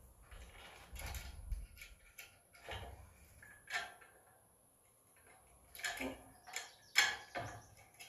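Small metal chain clinking in scattered light clicks as it is hooked onto screw hooks, with a quiet stretch in the middle and the sharpest click near the end.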